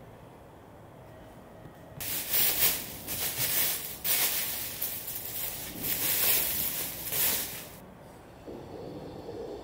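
Clear plastic wrapping crinkling and rustling as it is handled and pulled off a shoe, starting about two seconds in and stopping abruptly about six seconds later.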